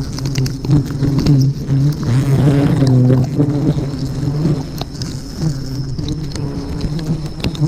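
A close swarm of honeybees humming loudly and steadily around their nest, with scattered sharp clicks and snaps over it and a thin, steady high insect whine behind.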